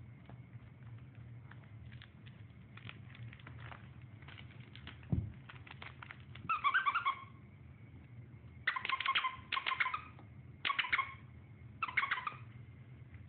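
Border collie puppy playing tug with a rope toy on a hardwood floor: light scattered clicks and taps, one thump about five seconds in, then five short bursts of high-pitched squeaking in the second half.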